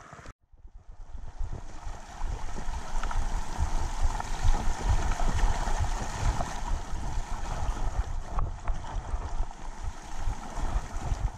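A mountain bike rolling along a muddy, waterlogged dirt track in the rain: steady tyre hiss and splashing through mud and water, with gusty wind buffeting the action-camera microphone. It begins after a momentary dropout.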